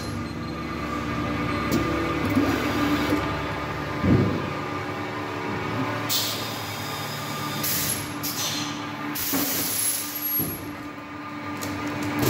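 Packaging machine running with a steady mechanical hum, a thump about four seconds in, and several short bursts of compressed-air hiss in the second half from its pneumatic cylinders.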